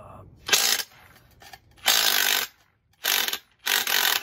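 Cordless power tool run in four short bursts, working a U-joint out of the driveshaft yoke.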